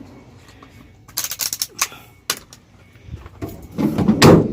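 A vehicle's cargo door being closed: a quick run of clicking and rattling from the handle and latch about a second in, then a heavy thud near the end as the door shuts.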